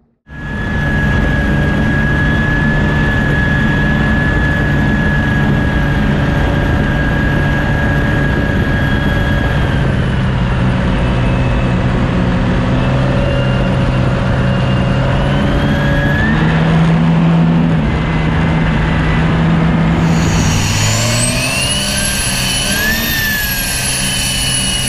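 Turbocharged Cummins diesel engine of a V-drive speed boat running hard under way, its pitch stepping up and down a few times. From about twenty seconds in, a high whistle rises and falls over it.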